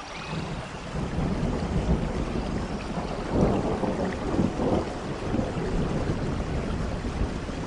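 Rain falling, with a low rumble of thunder that builds from about a second in and is loudest around the middle.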